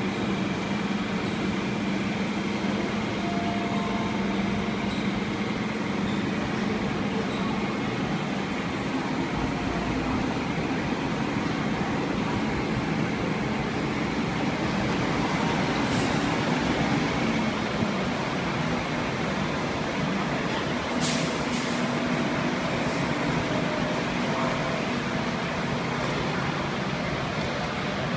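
Rubber-tyred Bukit Panjang LRT people-mover train pulling into a station: a steady mechanical hum and rolling noise that grows a little louder about halfway through as it comes in. A sharp click comes about three-quarters of the way through.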